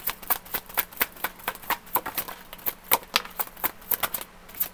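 A deck of oracle cards being shuffled by hand, a steady run of crisp card flicks and slaps at about four a second.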